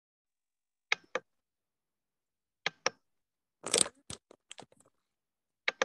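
Scattered sharp clicks and crackles, about a dozen, with a denser crackle about three and a half seconds in, separated by dead silence as on a video-call line.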